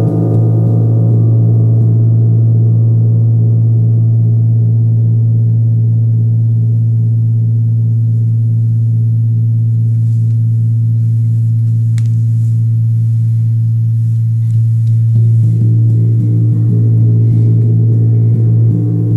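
Tuned moon gong played with soft felt mallets near the centre: a deep, sustained hum with a shimmer of overtones above it. The shimmer thins over the first several seconds, then swells again about fifteen seconds in as fresh soft strokes build it back up.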